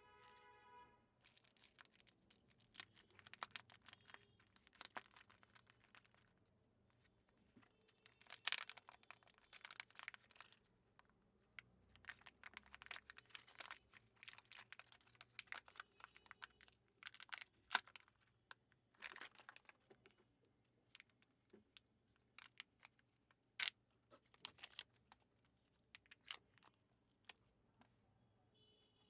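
Kinder Joy eggs being unwrapped: foil wrappers crinkling and tearing in short bursts, with scattered sharp clicks and snaps of the plastic packaging.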